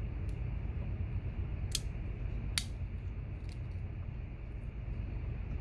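Metal tools of a Victorinox Camper Swiss Army knife clicking as they are worked open and shut against the backsprings: two sharp clicks just under a second apart, near the middle, with a few fainter ticks, over a steady low hum.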